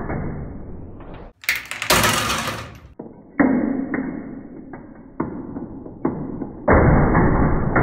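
Railway semaphore signal and its signal coupling clattering as the signal drops to stop: a run of sudden metallic knocks, loudest about one and a half to three seconds in. The signal falls undamped because the coupling's silver damping cylinder has seized and no longer touches the coupling lever.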